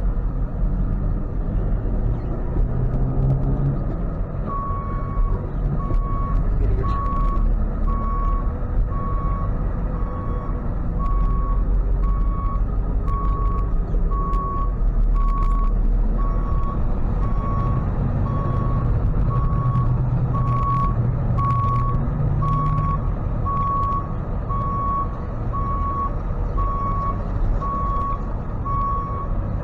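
Tow truck backing up: its reversing alarm beeps at an even pace from about four seconds in, over the low running of the truck's engine.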